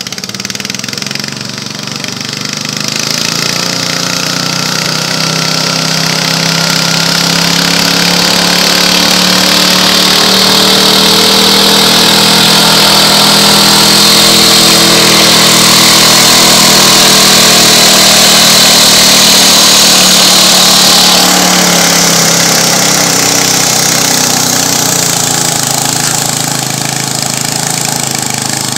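Modified garden pulling tractor's engine running hard while it drags a weight-transfer sled. The engine grows louder and higher in pitch through the first half of the pull, then eases off about three-quarters of the way through.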